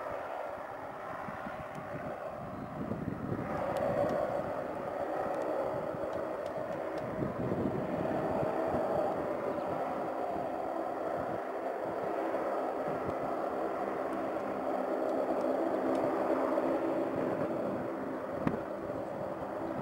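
Twin General Electric CT7 turboprop engines of a Saab 340 airliner running at low taxi power: a steady propeller drone with a constant whine, growing a little louder about four seconds in. A brief knock near the end.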